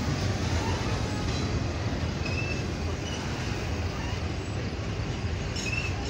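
Double-stack intermodal train's well cars rolling past at steady speed, a continuous rumble of steel wheels on rail, with two short, faint high squeaks.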